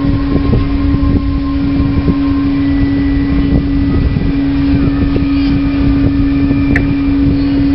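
A ship's engine running steadily: a constant low hum with one fixed tone over a rumble.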